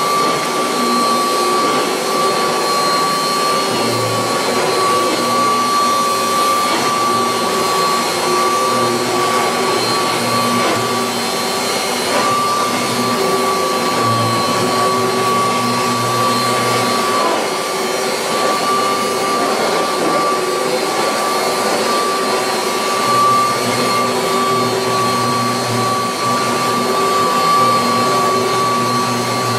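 1986 Kirby Heritage II vacuum cleaner running steadily, its motor and fan giving a constant high whine, with a lower hum that comes and goes as it is worked.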